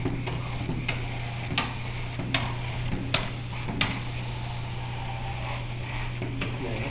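Sharp ticks about every three-quarters of a second over a steady low hum. The ticking stops about four seconds in and comes once more near the end.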